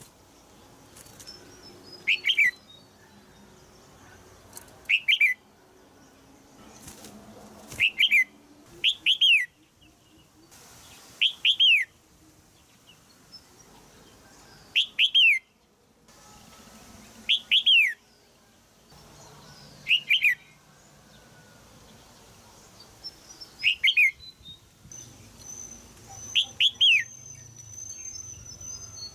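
Red-whiskered bulbul in a cage giving short, sharp 'jiak' calls, often doubled, each note falling quickly in pitch, repeated every two to four seconds. These are female calls used to stimulate a young male to sing.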